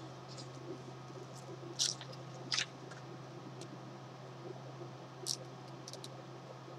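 Quiet room with a steady low hum and a few brief, soft handling noises, about two seconds in and again about five seconds in.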